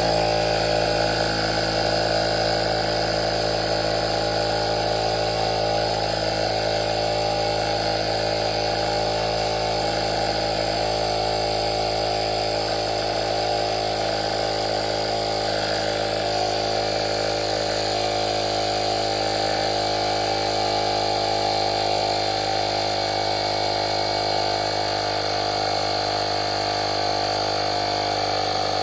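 Cordless portable tire inflator's small electric compressor running steadily with an even buzzing drone while it inflates a volleyball through a needle valve.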